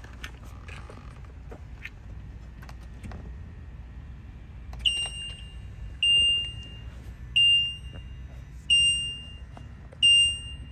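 A few soft clicks, then five evenly spaced electronic beeps from the 2022 Polaris Slingshot S's cockpit electronics, each about half a second long and coming about every second and a half: a warning chime once the system is switched on.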